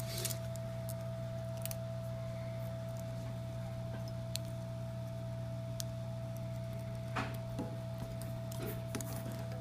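Steady low electrical hum with a faint higher tone. A few light clicks and taps come and go over it, the clearest just after the start and about seven seconds in.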